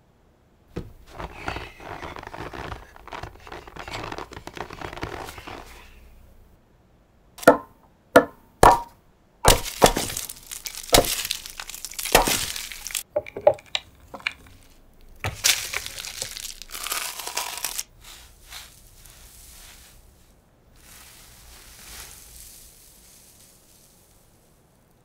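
Pressed eyeshadow and powder cakes being struck, cracked and crushed. Sharp cracking impacts, several in quick succession in the middle, come between stretches of gritty crumbling.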